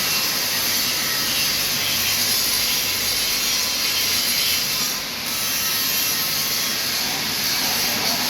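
A power tool running steadily, a continuous grinding or sawing noise that dips briefly about five seconds in.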